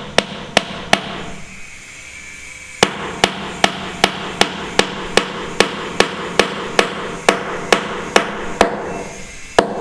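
Hammer blows on a building site: a quick run of four strikes, a pause of about two seconds, then a steady rhythm of about two or three blows a second for some six seconds.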